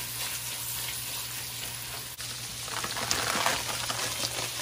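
Beef pieces sizzling in an enamelled cast-iron Dutch oven as a wooden spoon stirs them. About two seconds in, this gives way to a large stainless stockpot of water at a rolling boil, bubbling a little louder.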